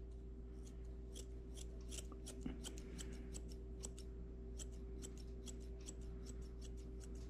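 Grooming shears snipping through a dog's long leg hair as it is trimmed: a steady run of light, crisp snips, several a second, over a faint steady hum.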